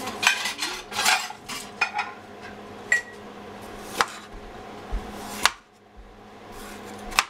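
Metal pots, pans and utensils clattering and clanking in a kitchen, a scatter of sharp knocks with a few louder clanks. A steady low hum underneath stops about five and a half seconds in.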